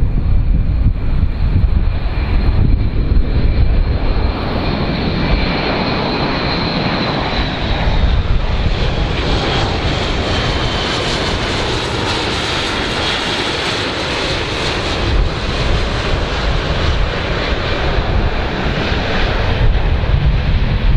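Airbus A400M Atlas's four TP400 turboprop engines and eight-bladed propellers running loudly as it flies past low, a steady heavy drone with a high turbine whine that falls slightly in pitch midway.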